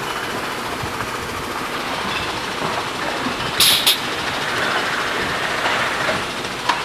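A bottle corking machine cycling over steady machine noise: two short, sharp hisses a quarter-second apart about three and a half seconds in as it drives a cork, then a sharp click near the end.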